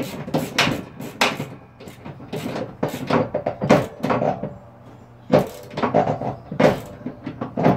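Metal clicks and clanks of a wrench working a nut onto a spindle-housing bolt on a steel mower deck, in an irregular run, with the nut threading on stiffly.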